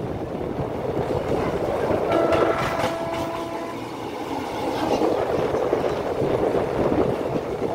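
Passenger train coach running on the rails, heard at an open window: a steady rumble and rattle of the wheels, with a faint steady tone that comes in for about a second and a half around the middle.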